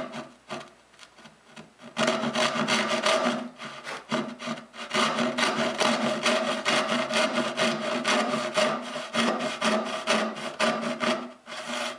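Hand dovetail saw (brass-backed backsaw) cutting dovetails into a pine board: a few short starting strokes, then fast, steady back-and-forth strokes. The strokes break off briefly about four seconds in and stop just before the end.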